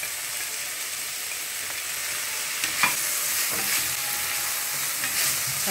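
Sliced onions and green chillies sizzling in oil in a frying pan while chopped tomato is scraped in and stirred with a spatula, with two light taps a little past halfway.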